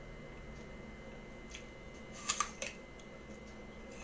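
A crisp raw apple crunching under a bite: a short burst of three or four sharp crackles a little over two seconds in.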